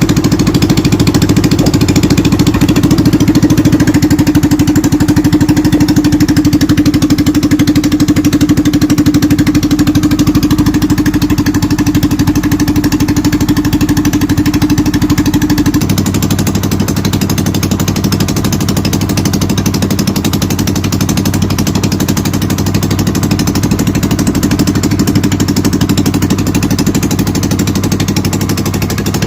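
Small boat engine running loudly and steadily with a rapid pulsing beat. The engine's note changes about halfway through.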